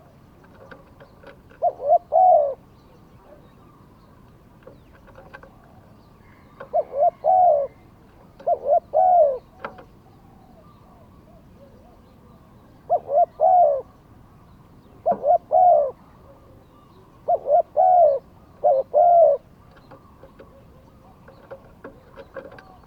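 Spotted dove cooing: seven short phrases of two or three low coos each, a few seconds apart.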